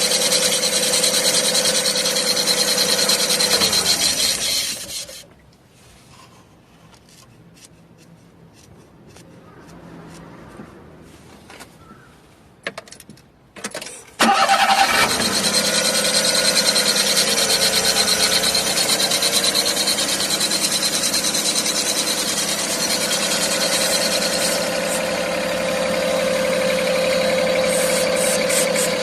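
Daihatsu Hijet kei truck's engine running with a steady whine, the abnormal belt noise heard under the seat that the owner traces to the air-conditioner belt. The engine is switched off about four seconds in, with a few faint clicks while it is stopped, and is started again about fourteen seconds in, carrying on with the same steady whine.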